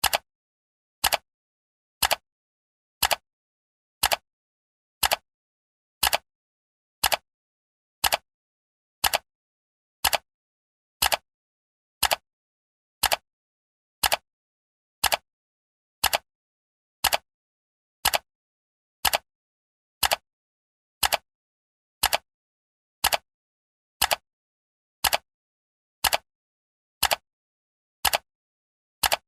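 Countdown timer's clock-style ticking sound effect: short sharp ticks, evenly spaced at one per second.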